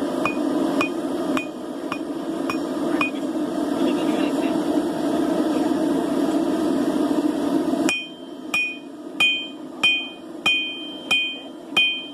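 Hammer blows on an anvil, each with a short metallic ring, about one and a half a second, over a steady rushing noise. The strikes pause for a few seconds. The rushing noise cuts off suddenly about eight seconds in, and the hammering resumes on its own with clearer ringing.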